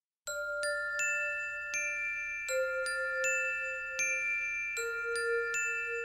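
Instrumental music opening with bell-like chiming notes, a new note struck roughly every three-quarters of a second and each left ringing. Under them a low held note steps down twice.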